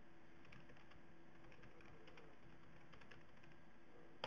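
Faint computer keyboard typing: a run of light key clicks, with one sharper click near the end.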